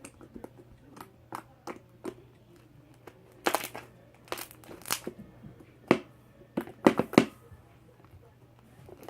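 Crunchy slime being stretched and squeezed by hand, giving irregular crackling pops, a few of them louder in the middle.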